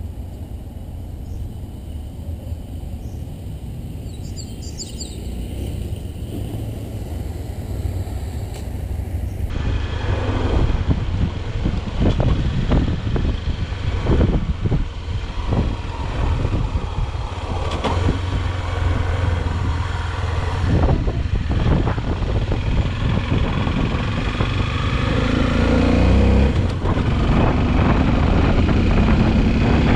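A low, steady rumble with a few faint bird chirps, then, after a cut about a third of the way in, the Honda XRE 300's single-cylinder engine running as the bike is ridden, under heavy wind buffeting on the mount camera's microphone, growing louder toward the end.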